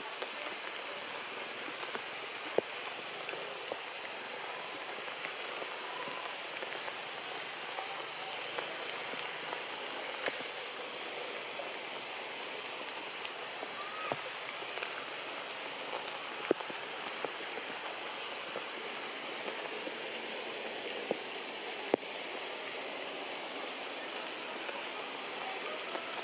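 Steady rain falling on foliage, with sharp single drips landing now and then.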